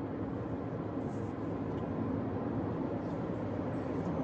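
Steady road and engine noise inside the cabin of a 2021 Toyota RAV4 driving along at road speed, a low even rumble without change.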